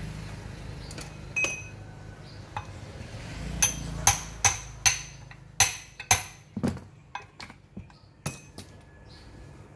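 Metal tools and parts of an electric water pump being handled and struck: a run of sharp metallic taps and clinks, each with a short ring. The strikes come about two a second in the middle and the loudest, with lighter taps after.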